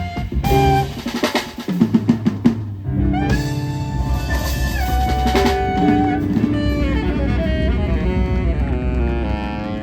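Live jazz quartet of keyboard, saxophone, bass and drum kit playing: a busy drum fill of snare and cymbal strokes for about the first three seconds, then the band sustains long held notes and chords that slowly die away, like the close of a tune.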